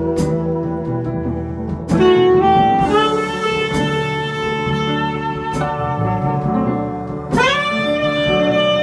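Saxophone playing long held jazz notes, with sharp new entries about two seconds in and again near the end, over piano and drums.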